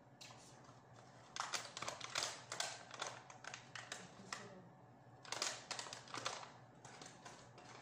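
Brown KFC paper takeaway bag being handled and crumpled open, crinkling in two bouts of quick crackles, the first about a second and a half in and the second around five seconds in.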